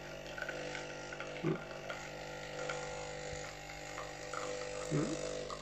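Capsule coffee machine brewing, its pump running with a steady hum while the coffee flows.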